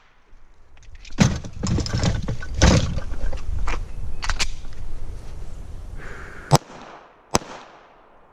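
Several gunshots on a shooting stage, the last two about a second apart near the end, with scuffing, rustling movement and rumble on the body-worn microphone between them.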